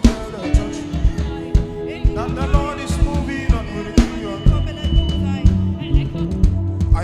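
Live gospel worship band playing with a steady drum beat and a bass line under sustained chords.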